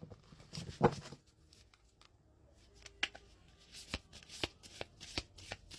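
A deck of tarot cards being shuffled by hand: one sharp snap of the cards about a second in, a brief lull, then a run of quick clicks of card against card from about three seconds in, coming faster toward the end.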